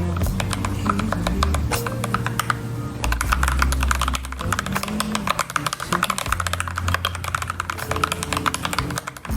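Rapid typing on an FL-Esports FL680 mechanical keyboard with Gateron Cap Yellow linear switches, a dense run of keystroke clicks that gets even faster about three seconds in.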